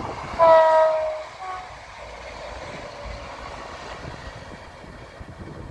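A ScotRail diesel multiple unit sounds its horn as it passes: a long note that sinks slightly in pitch, then a short higher note. After the horn, the train's engine and wheel rumble fade as it moves away.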